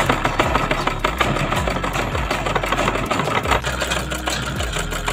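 Black domestic sewing machine stitching steadily, its needle mechanism running in a rapid, even clatter as it sews through knit fabric.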